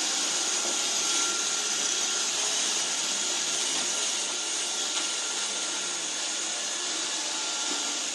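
Robot vacuum cleaner running steadily: an even whirring hiss with a faint steady whine.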